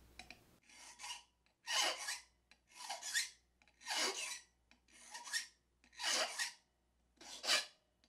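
Hand file stroking across a key blank, seven even strokes about a second apart. The cut is being filed deeper from depth one toward depth two while impressioning a key for a lock.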